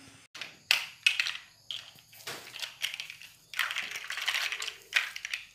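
Irregular bursts of rustling and crackling handling noise, starting sharply just after a quiet moment and coming in uneven, dense stretches.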